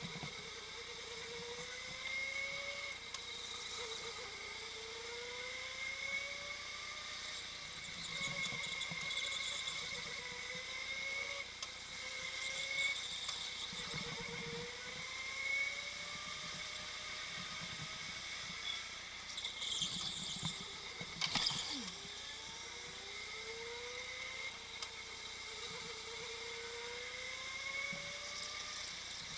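Go-kart drivetrain whining, rising in pitch again and again as the kart accelerates out of each corner, over a steady rush of noise. One sharp knock about two-thirds of the way through.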